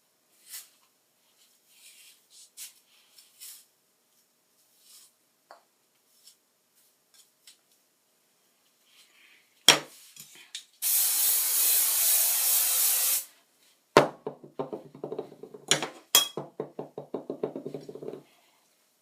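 Aerosol hairspray sprayed in one steady hiss lasting about two seconds, after a sharp click. Afterwards a few sharp knocks and a quick run of short rubbing strokes, as of working the hair with a comb or brush.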